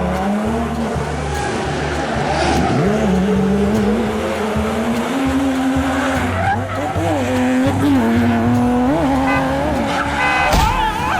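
A cartoon car engine sound effect revving, its pitch rising and falling again and again, with tyre squeals.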